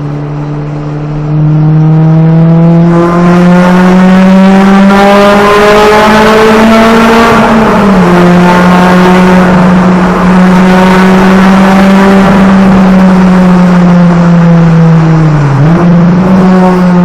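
Honda Civic Type R EK9's 1.6-litre VTEC four-cylinder running through an aftermarket exhaust, loud: the engine note climbs slowly under acceleration, drops suddenly about eight seconds in as at a gear change, then holds a nearly steady pitch, with a quick dip and rise near the end.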